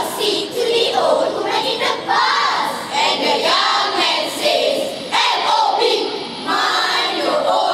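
A large group of schoolchildren's voices performing choral speaking in unison, reciting or chanting together in rising and falling phrases.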